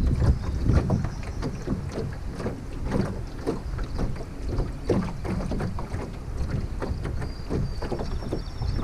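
Wind buffeting the microphone with a steady low rumble, while small wind-driven waves slap and lap against the hull of a jon boat in quick, irregular splashes.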